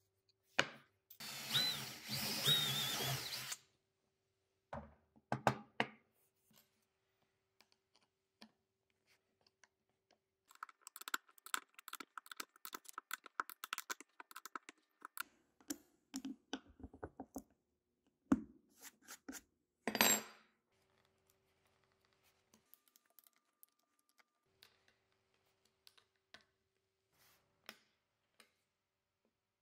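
Woodworking assembly sounds. A power drill-driver runs for about two and a half seconds near the start, driving a screw into plywood. Later comes a long run of small rapid clicks with a thin squeal as a hex key turns a screw into the wood, then a few sharp knocks of wood on the metal table.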